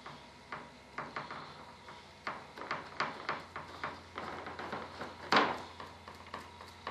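Gloved hands working fiberglass cloth into a mold with a hand tool: irregular taps, dabs and rustles of cloth and sheeting, with one louder rustle a little past five seconds in.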